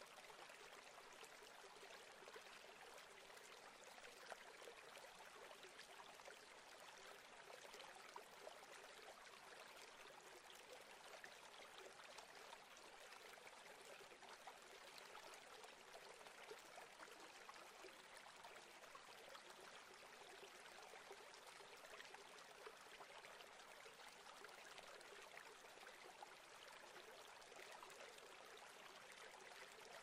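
Near silence: a faint, even hiss with no distinct events.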